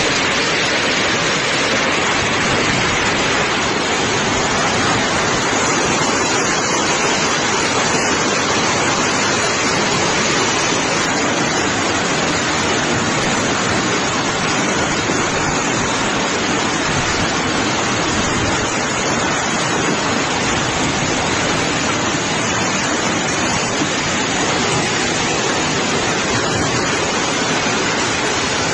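Heavy hailstorm: hail and rain pelting down hard onto a street, a dense, steady hiss that never lets up.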